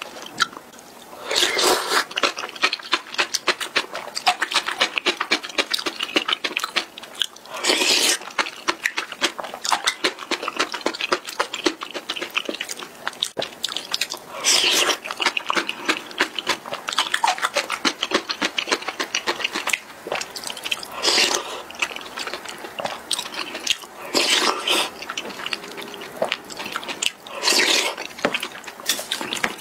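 A person eating noodles: slurping and wet chewing with lip smacks. Stronger slurps come every few seconds over a steady run of quick chewing clicks.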